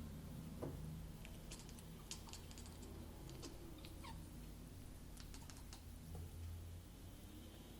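British Shorthair kitten chattering at a fly: faint runs of quick clicks with a couple of short chirps, the excited hunting chatter of a cat watching prey.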